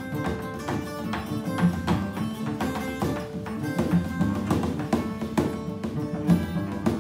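Live instrumental trio: a tiple (Colombian twelve-string guitar) plucked and strummed, a bowed cello holding sustained notes, and two drums struck with beaters in a steady rhythm.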